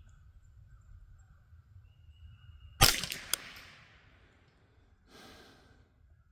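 A single shot from a CZ 512 semi-automatic .22 LR rifle about three seconds in, followed at once by two quick metallic clicks of the action cycling. About two seconds later comes a short breathy hiss.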